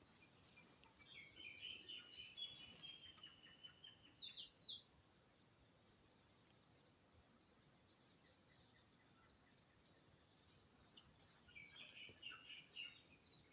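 Faint songbirds chirping, with a few quick falling whistles about four seconds in and another run of chirps near the end, over a steady high thin tone.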